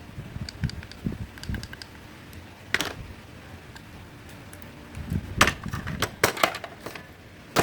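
Small hard parts being handled and taken apart: irregular clicks, taps and clatter, with a few louder knocks about three seconds in and again near the end.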